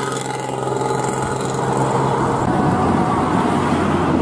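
An intercity bus passing close by on a highway: a steady engine hum with road and tyre noise that grows louder toward the middle, as it goes past.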